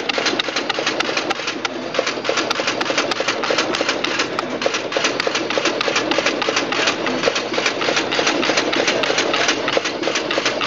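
Duplo business card cutting module running, feeding and cutting paper sheets with a fast, steady mechanical clatter of many evenly spaced clicks.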